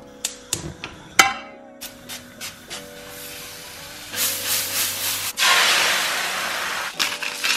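Clicks and knocks of kitchen utensils, then about five seconds in a sudden loud sizzle of food going into a hot frying pan that slowly dies down, over quiet background music.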